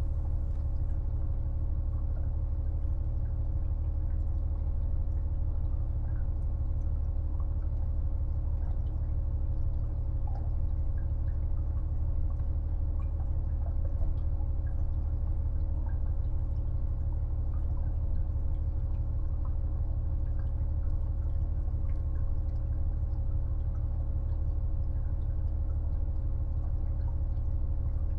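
Inside a KiHa 48 500-series diesel railcar: a steady deep rumble of its diesel engine and running gear with a constant hum, and scattered light clicks and rattles.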